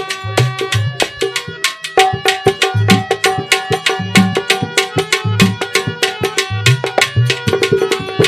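Instrumental break in a nirgun bhajan with no singing: a hand drum plays a fast rhythm of deep strokes and rapid sharp beats over steady held melody notes.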